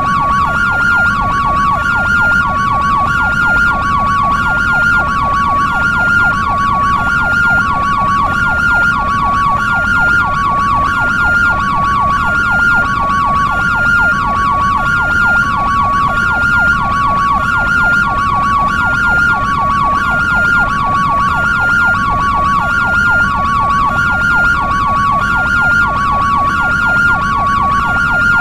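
European-style hi-lo two-tone ambulance siren alternating steadily between a high and a low note, about two-thirds of a second each, with a faster wavering layer beneath and a low rumble underneath.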